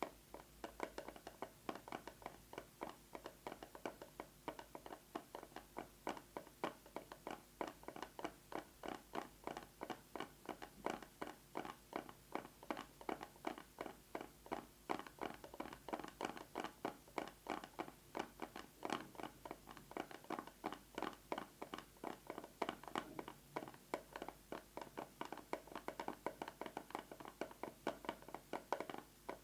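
Fast fingernail tapping on a plastic box with a metal lid: a continuous run of quick, sharp taps, several a second, with irregular louder hits.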